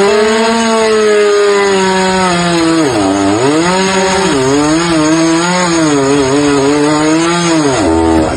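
Chainsaw running at high revs while cutting wood. Its engine note sags sharply about three seconds in as it loads up in the cut, wavers as it recovers, and drops near the end.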